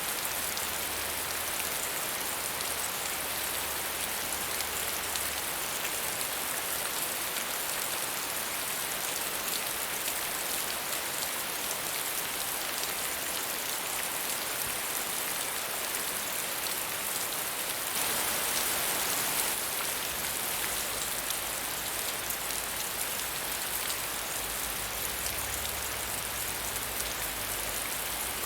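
Steady medium rainfall, an even hiss of rain falling on surfaces, briefly a little louder about two thirds of the way through.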